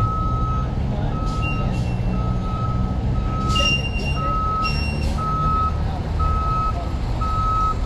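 Ambulance reversing alarm beeping steadily, about once a second, each beep about half a second long. A low engine rumble runs underneath.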